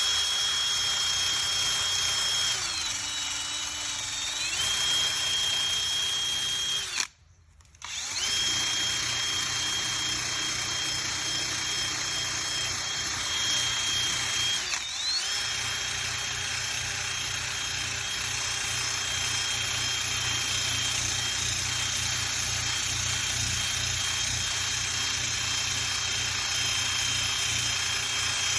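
Electric drill fitted with a sanding attachment, sanding old paint off a car hood: a steady motor whine that sags in pitch under load about three seconds in, cuts out briefly about seven seconds in, then starts again and runs on with a short dip in the middle.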